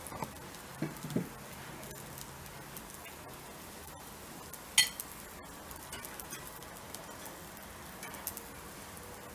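Faint crackle and sizzle of a beef patty cooking on a charcoal grill, with scattered small clicks, a couple of soft knocks about a second in, and one sharp click a little before the middle.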